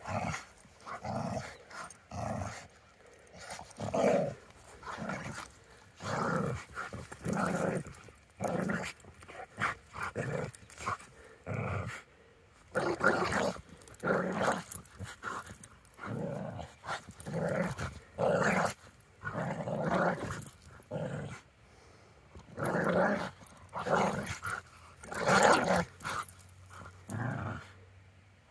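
Two dogs play-fighting, growling in repeated short bursts as they tug on a leash and wrestle; the growls are play, not aggression.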